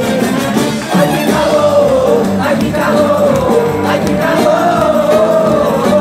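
Live band playing amplified Brazilian carnival music, with electric bass, drum kit and guitars, and a singer's voice carrying a wavering melody over the band.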